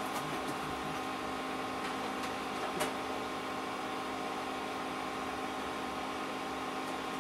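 A steady hum made of several fixed tones over a faint hiss, with one light click about three seconds in.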